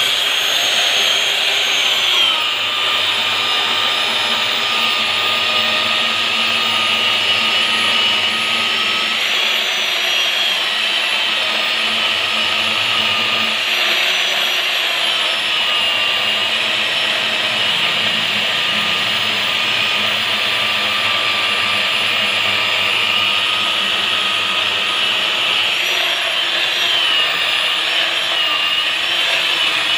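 Electric chainsaw with a 22-inch bar cutting steadily through a thick log: a continuous high motor whine with the chain rasping through the wood. The pitch dips a little now and then as the chain bites harder.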